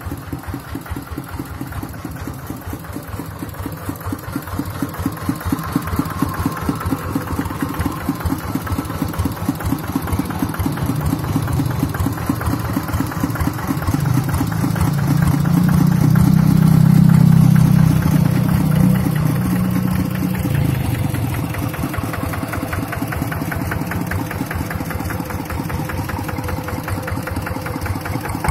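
Kubota RD85DI single-cylinder diesel engine running with a steady chug of firing strokes. It grows louder toward the middle, then eases back.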